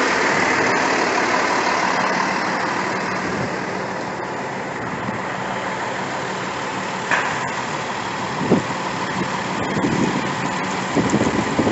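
Truck engine idling close by, under a steady rushing noise with a few faint crackles.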